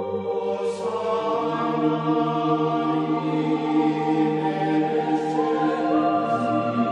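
Ambient background music of long held, choir-like vocal chords that shift slowly from one chord to the next.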